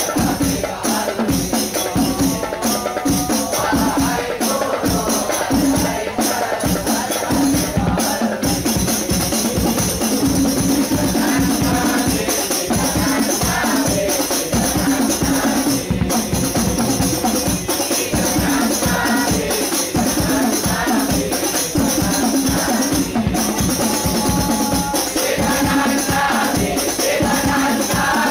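A group of men singing an Islamic devotional qasidah together, accompanied by a hadrah ensemble of hand-beaten frame drums in a steady, driving rhythm.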